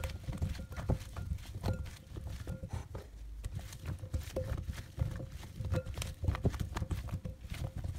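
Raw burro banana fry strips, oiled, being tossed by hand in a glass bowl: irregular soft knocks and clinks against the glass, several a second, some leaving a brief ring from the bowl.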